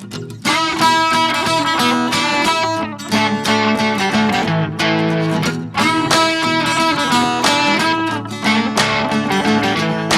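Background music led by guitar, with plucked and strummed notes.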